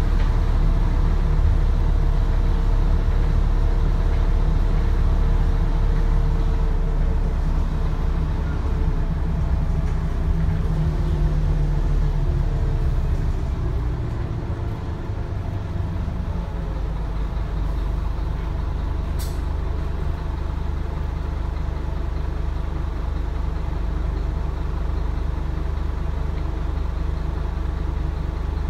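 Scania N230UD double-decker bus's five-cylinder diesel engine running steadily, its pitch gliding and the level easing off about halfway through. There is a brief hiss of air a little past two-thirds of the way in.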